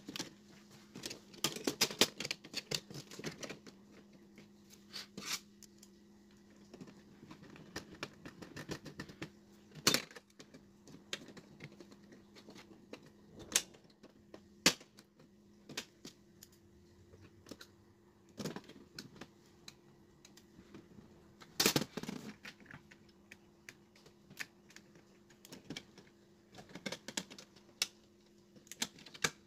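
Irregular clicks, taps and knocks of an LED TV's circuit board being handled and fitted back onto the TV's sheet-metal back chassis, its cable connectors plugged in. A few louder knocks stand out, the loudest about two seconds in and about 22 seconds in, over a faint steady hum.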